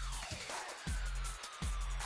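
Background electronic dance music: a heavy bass beat drops in right at the start after a build-up, with a falling sweep and busy high percussion over it.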